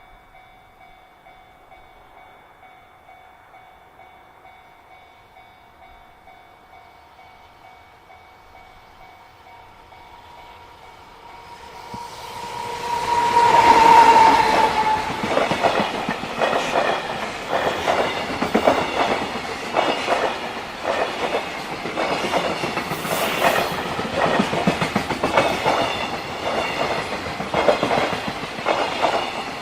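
Level-crossing warning bell ringing steadily. About twelve seconds in, a lightly loaded JR Freight train arrives: the electric locomotive sounds a short horn blast, then the wagon wheels clatter rhythmically and loudly over the rail joints as the train passes.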